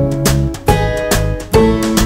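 Background music: a plucked acoustic guitar tune with a steady beat, new notes struck about twice a second.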